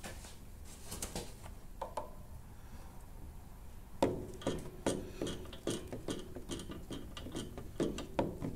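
Small screwdriver clicking and scraping against the metal fittings of a lawn mower carburetor, a few light clicks at first and then a quick run of sharp metallic clicks and taps from about four seconds in.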